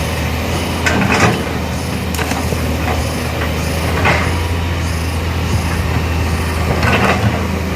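Excavator's diesel engine running steadily, with a few short knocks or scrapes, about five in all.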